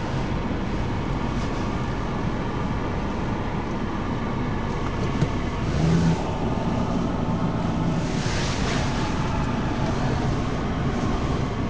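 Car driving slowly on a wet road, heard from inside the cabin: steady engine and tyre noise. The engine hum briefly swells about six seconds in, and a short hiss follows around eight seconds in.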